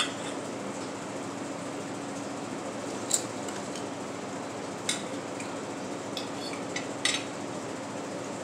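Metal knife and fork clinking against a ceramic plate in a few short, separate clinks, a quick pair near the end, over a steady background hum.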